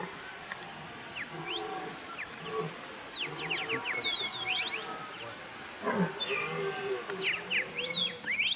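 Insects chirring in a steady, high-pitched drone, with bursts of quick sweeping bird chirps over it, most of them in the middle and near the end.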